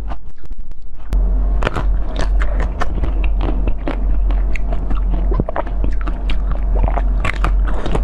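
Close-miked ASMR eating: crisp, crackling bites and chewing of a frozen blue dessert, a dense run of sharp cracks starting about a second in, over a steady low hum.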